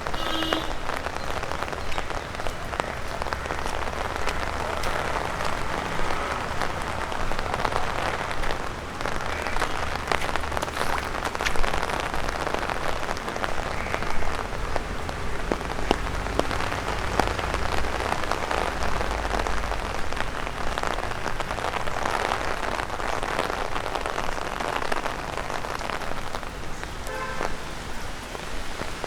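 Rain drumming on an umbrella held overhead: a steady hiss of rain with many sharp taps of single drops, some falling from the trees onto the umbrella. A couple of louder taps come near the middle.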